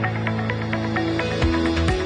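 Electronic background music with sustained bass notes and a steady beat; the low beat drops away briefly and comes back about one and a half seconds in.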